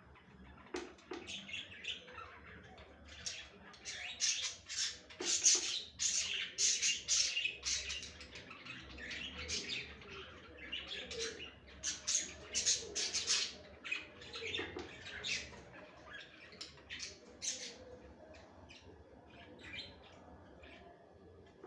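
A group of budgerigars chattering and warbling in a fast, dense run of short chirps and squawks, the breeding-season calling used to stimulate pairs to mate. The calling thins out near the end.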